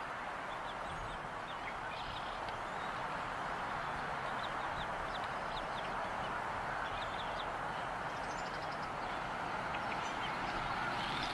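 Bald eagle chicks peeping, many short high chirps scattered through a steady hiss: food-begging calls while the adult offers them food in the nest.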